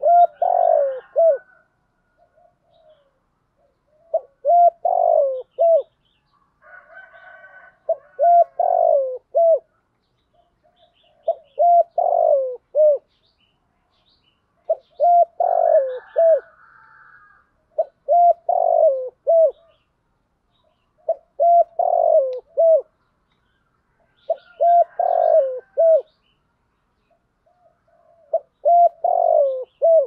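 Spotted dove cooing: a phrase of three or four low notes, repeated about every three and a half seconds, nine times over.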